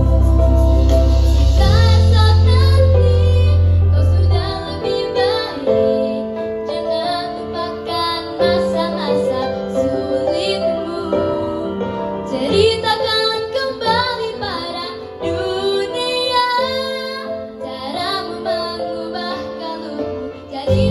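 Kids' and teens' show choir singing a pop song live with young girls' voices into handheld microphones over accompaniment. The heavy bass drops out about four seconds in, leaving the young voices over lighter accompaniment.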